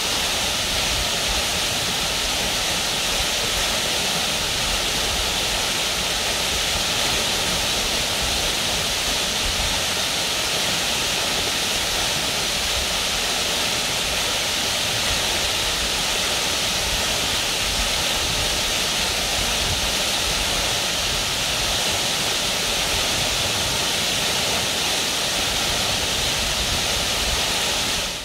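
A narrow waterfall pouring steadily into a shallow plunge pool: a steady shower of falling water, an even, unbroken rush that never changes.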